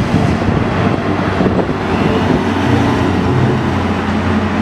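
Concrete mixer truck driving along a city street: a steady low engine drone over road and traffic noise.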